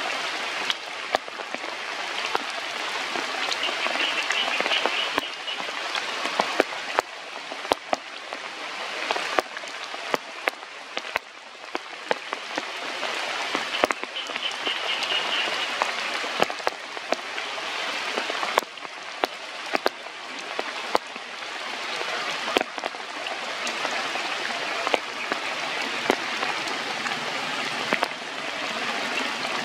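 Steady rain falling, with many sharp taps of drops hitting a nearby surface. A brief high trill sounds twice over it.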